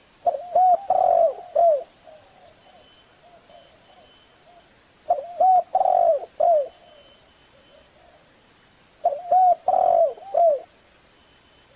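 Spotted dove cooing: three phrases about four seconds apart, each two short coos, a longer one and a short closing coo. Faint high chirping runs behind.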